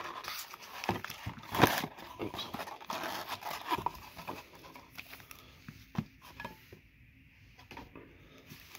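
Sealed foil trading-card packs crinkling and rustling as a stack of them is pulled from the box and shuffled in the hands, loudest in the first few seconds. This is followed by quieter handling and a few light taps as the packs are set down on the table.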